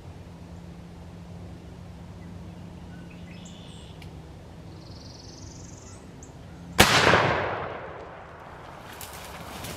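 A single shotgun shot about seven seconds in, sharp and loud, fading out over about a second: the shot that drops the turkey. Faint bird chirps come before it.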